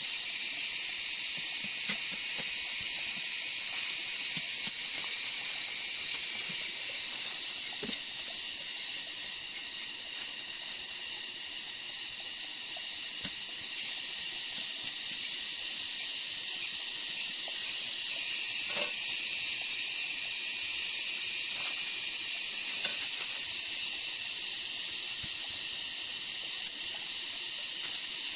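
A steady, high-pitched insect chorus in the rainforest, dipping a little about a third of the way in, then swelling louder, with a few faint clicks.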